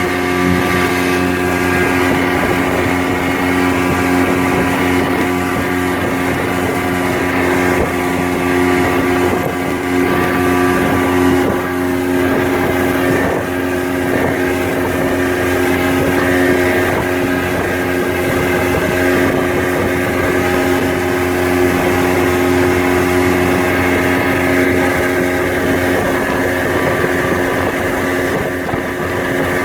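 Motorboat engine running at a steady speed, a constant hum over an even rushing noise.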